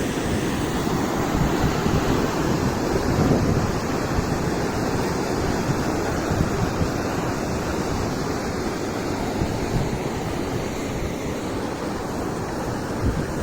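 Steady rushing wind buffeting the microphone, with an uneven, gusting rumble.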